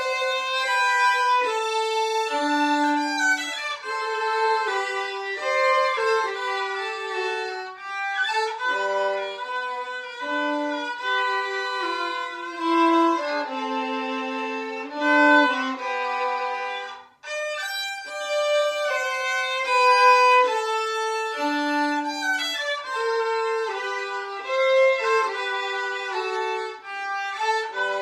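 Two violins playing a duet together, bowed melodic lines with several notes moving at once. The music breaks off briefly about two-thirds of the way through, then both resume.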